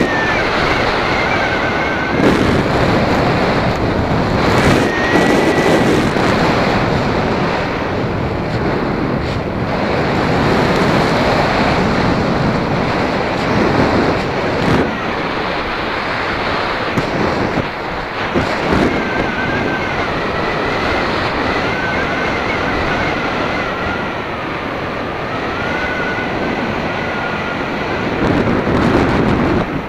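Paramotor engine and propeller running in flight under heavy wind noise on the microphone. A thin whine from the engine steps up and down in pitch as the throttle changes.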